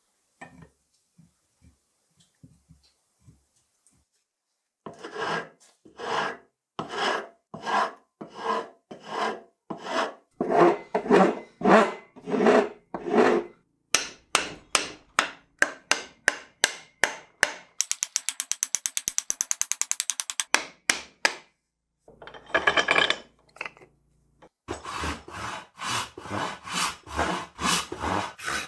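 Hand tools working a wooden axe handle: a few faint clicks, then a long run of rhythmic strokes on the wood, about one a second, and a quicker run of sharp strokes in the middle. Near the end a hand saw cuts into the end of the handle with steady strokes.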